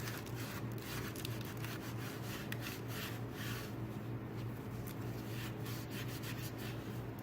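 Faint rubbing and scattered light clicks of hands handling things at a workbench, over a steady low hum.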